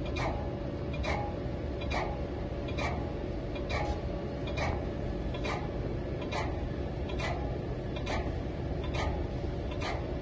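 Vertical CNC wheel-cutting lathe running with an alloy wheel turning under its tool: a sharp tick repeats evenly, just under a second apart, over a steady machine hum with a faint constant tone.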